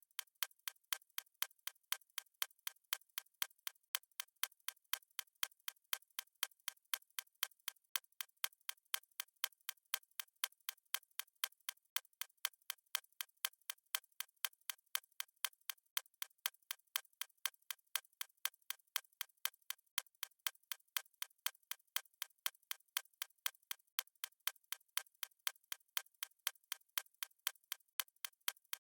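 Clock ticking sound effect of a countdown timer: steady, even ticks, about two a second, thin and light with no low end.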